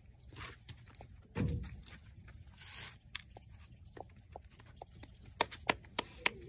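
A short, low animal call with falling pitch about a second and a half in, then a run of sharp clicks and knocks in the last couple of seconds.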